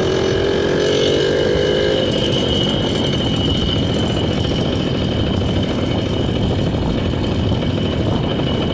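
Jawa motorcycle's small two-stroke engine pulling on the move in second gear through its dented original exhaust, rising in pitch for about the first two seconds and then running steady.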